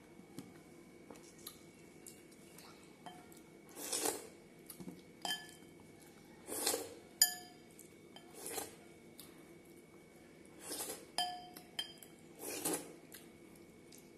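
Hand scooping food from a glass bowl: several sharp clinks as the hand knocks the glass, each ringing on briefly, between a few short noisy eating sounds about two seconds apart.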